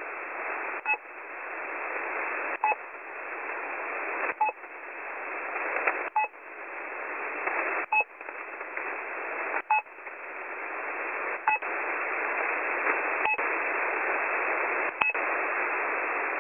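Shortwave radio receiving the 'drop' channel-marker signal on 6402 kHz: a short drop-like blip repeating about every 1.8 seconds over steady radio static hiss. The drop frequencies are taken to be run by pirate operators rather than the Russian military.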